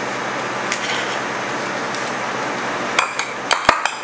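Spoons scraping and clinking against the metal bowl of an ice cream maker as soft ice cream is scooped out, with a quick run of sharp clinks in the last second. A steady background hum runs underneath.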